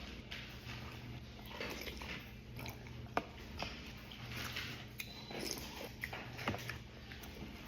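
Close-up chewing and crunching of raw vegetables, with irregular wet bites and a few sharp crunches, the loudest about three seconds in.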